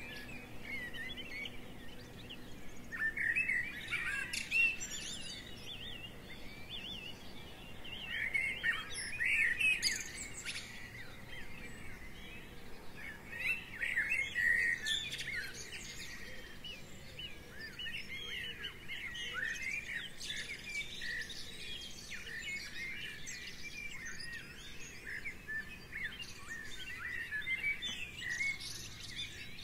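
Small songbirds chirping and twittering, many calls overlapping, with busier flurries every few seconds.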